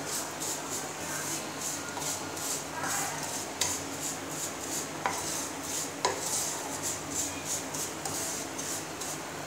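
Wooden spatula stirring and scraping fine vermicelli as it is lightly fried in ghee in a nonstick pan: a rhythmic scraping of about three strokes a second. Three sharp knocks of the spatula against the pan, the loudest about six seconds in.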